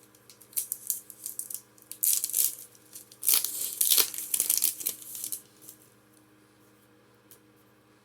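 Foil Pokémon booster pack wrapper being crinkled and torn open, a run of crackling tears lasting about five seconds and loudest near the middle.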